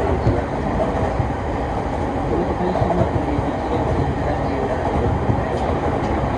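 Running noise heard inside a moving commuter train carriage: a steady rumble of the wheels on the rails.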